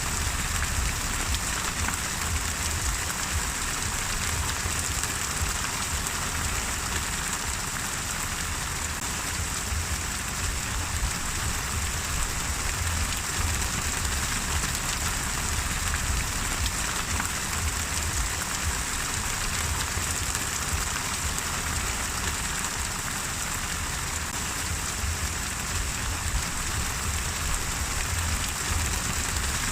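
Steady rain falling and pattering on a surface, an even hiss with close drop ticks and a low rumble underneath.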